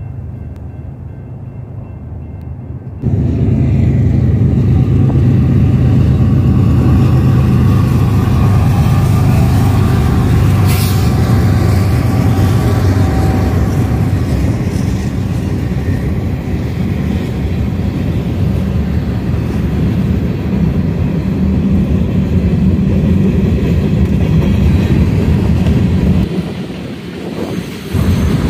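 Freight train passing close by: diesel locomotive engine and the heavy rumble and clatter of boxcar wheels on the rails. It comes in suddenly loud about three seconds in and dips briefly near the end.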